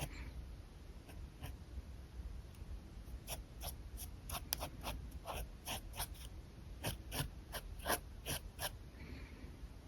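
Pen nib scratching on paper in quick short strokes while sketching. The strokes are sparse at first and come thick and fast from about three seconds in until near the end.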